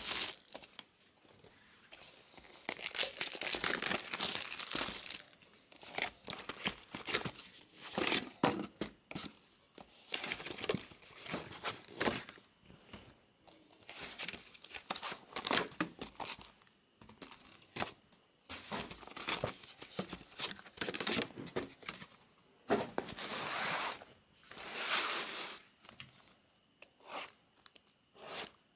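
Clear plastic shrink wrap being torn and crinkled off sealed trading-card hobby boxes, in irregular bursts of tearing and rustling with short pauses, two longer tearing stretches standing out.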